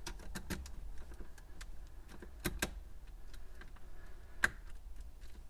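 Metal key being worked into the glove compartment lock of a 1994-2004 Ford Mustang, giving a scatter of small sharp clicks and metal taps. The original key will not operate the lock.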